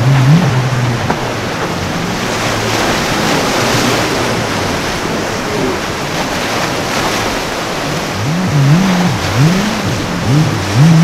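Crashing surf and wind over the low drone of a catamaran's outboard engines; near the end the engine pitch rises and falls several times in quick swells.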